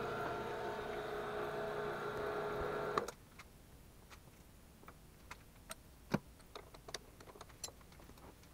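PM-727 milling machine's spindle running slowly with a steady hum, switched off about three seconds in. Then scattered light clicks and taps as the coaxial centering indicator is handled and taken out of the spindle.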